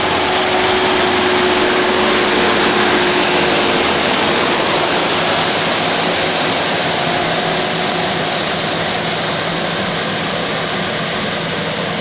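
World DR150A crawler combine harvester running under load as it cuts and threshes rice: a steady, dense noise of engine and threshing works, with a faint whine in the first few seconds that fades out about four seconds in.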